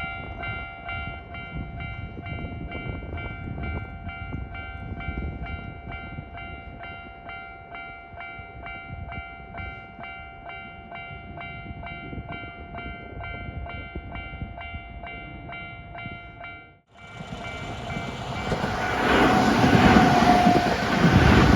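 Railway level-crossing warning bell ringing in rapid, even strikes. After an abrupt cut, a Nankai Main Line train passes close by with a loud, swelling rush and rumble of wheels on rails.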